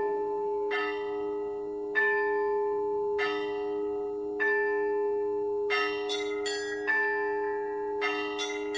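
Orthodox church bells ringing in a slow, even rhythm, a stroke about every second and a quarter, then a quicker run of three strokes about two-thirds of the way through, over a steady low hum.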